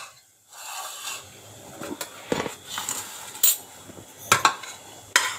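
A handful of separate knocks and clinks of kitchenware: a bowl being set down on the counter and a pan and metal spoon being handled.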